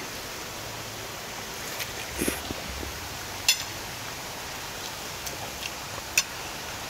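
Metal cutlery clinking against ceramic plates a few times, with two sharper clinks about halfway through and near the end, over a steady background noise.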